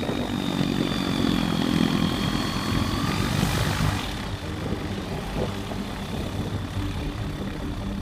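VL3 Evolution ultralight's propeller engine running at low power on the ground, a steady drone with a high whine over it. It eases a little about halfway through, just after a brief rush of hiss.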